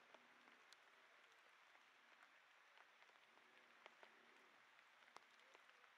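Faint rain: a steady hiss with scattered drops ticking here and there.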